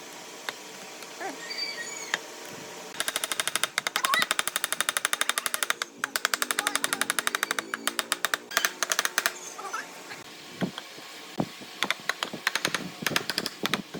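Rapid mechanical rattling in three bursts of about a dozen or more strokes a second, the first and longest lasting about three seconds, from a power tool or machine at work.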